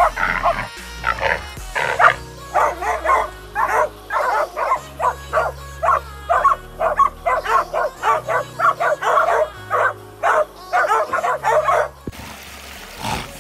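Pig-hunting dogs barking rapidly and continuously, bailing a wild boar in thick scrub. The barking stops abruptly about twelve seconds in. Background music with low held notes runs underneath.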